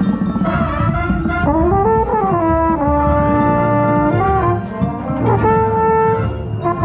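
Drum corps brass line playing, with a mellophone right at the microphone: long held notes joined by short slurred runs up and down in pitch.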